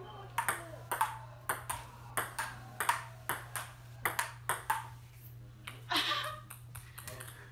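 Table tennis rally: the ball clicking off paddles and bouncing on the table, several quick hits a second, breaking off about five seconds in, followed by a louder knock and a few fainter clicks.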